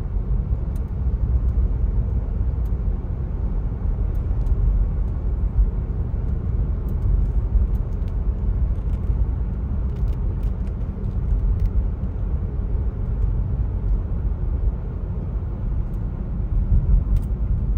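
Car driving along a road, heard from inside the cabin: steady, low road and engine noise.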